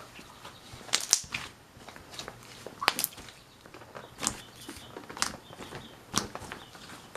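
Thick slime being squished and poked by hand, giving sharp, wet pops and clicks at irregular intervals, the loudest about a second in and about three seconds in.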